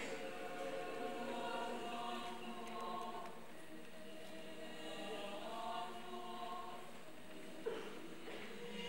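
Mixed choir of men and women singing slow, held chords that swell and fade.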